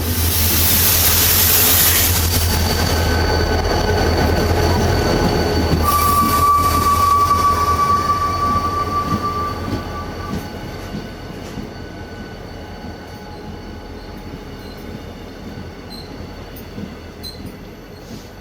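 Passenger train pulling into a station and braking: a loud rushing hiss at first, then a steady high brake squeal for about four seconds in the middle, fading to a quieter rumble with scattered clicks as it slows to a stop.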